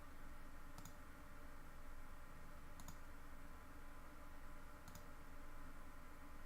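A computer mouse clicked three times, about two seconds apart, over a faint steady background hum.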